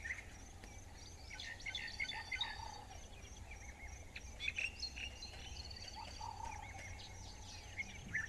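Several birds calling in the bush: scattered short chirps and a few rapid trills, over a low steady rumble.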